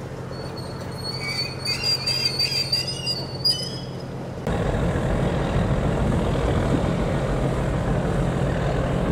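A trawler's diesel engine, which the filmer takes for a Cummins N14, running steadily at idle, with a wavering high squeal over it for a few seconds. About four and a half seconds in, the sound cuts abruptly to a louder, even rumble.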